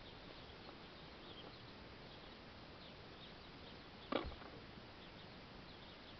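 Faint chirping of small birds, short high calls scattered throughout, with one sudden thump about four seconds in.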